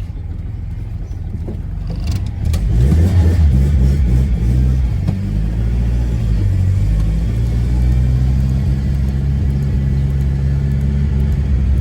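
Turbocharged Chevrolet Corsa engine under way, heard from the car: the engine note swells about two seconds in as the car accelerates, then holds a steady pull.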